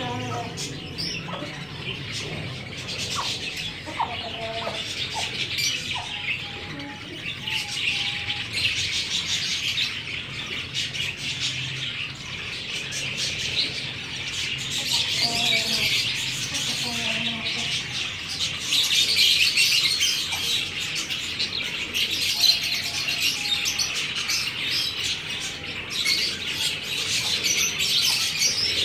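Many small birds chirping continuously in a dense, high twittering, with occasional short lower clucks from the chickens.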